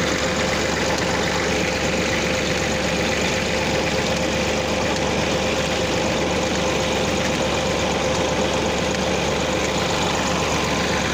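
Massey Ferguson 240 tractor's three-cylinder diesel running steadily at low revs, driving a tubewell pump through a shaft, easily and under no strain.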